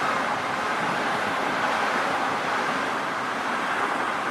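Steady rushing noise of a metro train rolling past on its tracks, mixed with road traffic.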